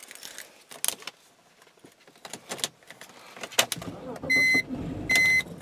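Keys clicking, then from about three and a half seconds in a BMW 325xi straight-six is cranked on a cold start and rumbles without settling into a run, the car's starting problem. An electronic dashboard warning chime beeps over it a little more than once a second.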